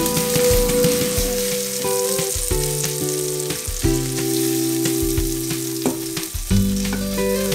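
Burger patties sizzling and crackling in oil in a cast iron skillet while a slotted spatula scrapes under them and lifts them out, with a few light taps against the pan. Background music with held chords plays along.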